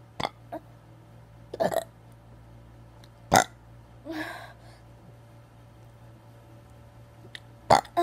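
A boy burping on purpose, one short burp after another at irregular gaps, the loudest a little past three seconds in and near the end.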